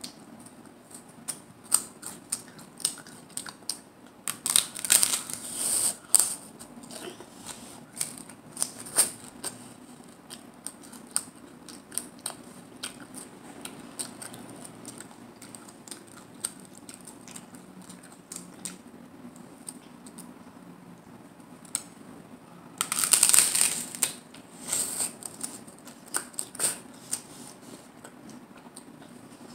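Hard-shell taco being eaten close to the microphone: crisp crunching bites, loudest about five seconds in and again past twenty seconds, with chewing and small mouth clicks in between.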